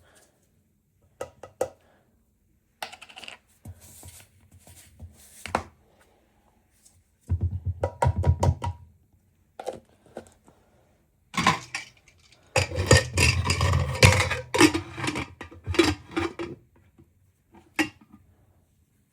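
Objects being handled and set down: irregular clattering and knocking with dull thumps, busiest about halfway through and again in the second half.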